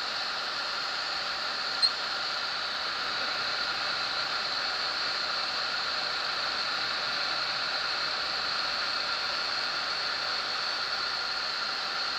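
Steady, even hiss of cabin noise inside a Zenair CH-300 light aircraft on final approach, engine, propeller and airflow blended without a distinct beat. A single short click about two seconds in.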